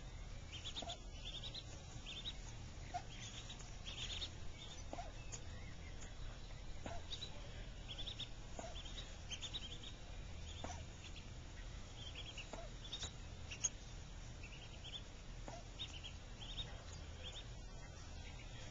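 Mallard ducklings peeping: a steady stream of short, high peeps, several a second.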